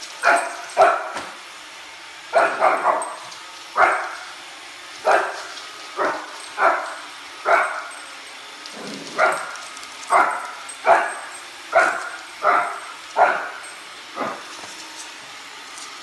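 A Shih Tzu puppy barking repeatedly at a running Roomba robot vacuum: short, sharp, high barks about one a second, some in quick pairs and triples. A steady low hum from the robot vacuum runs underneath.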